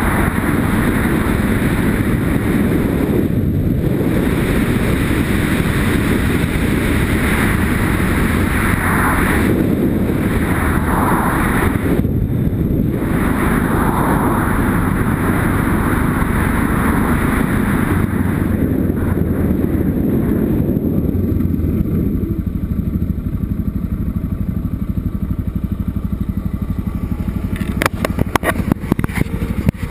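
Yamaha Ténéré motorcycle being ridden over a gravel track, recorded from a helmet mount: the engine runs under dense wind and tyre noise on the loose surface. About three-quarters of the way through, the bike slows and the rushing noise drops away, leaving a quieter running engine. Near the end there is a quick run of sharp rattling clicks.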